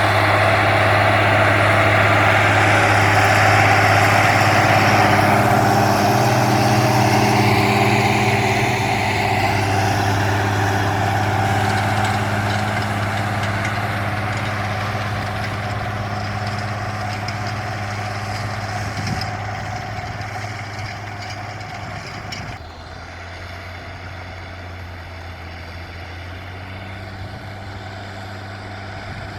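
Zetor 16245 tractor's six-cylinder diesel engine running steadily under load while pulling a disc harrow through the soil. It grows gradually fainter, dropping off more suddenly about three-quarters of the way in.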